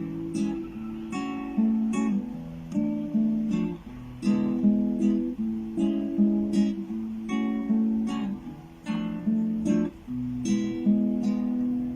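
Acoustic guitar strumming chords in a steady rhythm, the instrumental opening of a song before the voice comes in.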